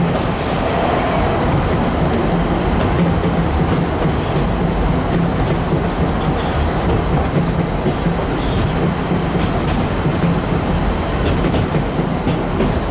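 Narrow-gauge passenger carriage running along the track, a steady rumble and rattle of wheels on rails heard through an open carriage window.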